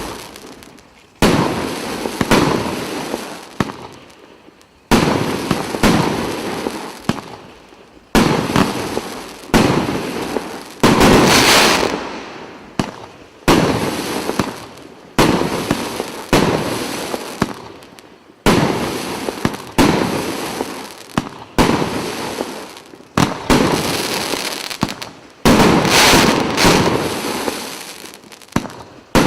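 A firework cake firing shot after shot, about twenty in all, most about a second to a second and a half apart. Each is a sharp bang that dies away over about a second.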